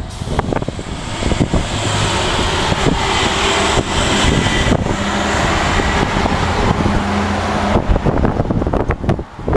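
Strong gusting wind buffeting the microphone, with a vehicle running steadily on the road below through most of it, fading out near the end.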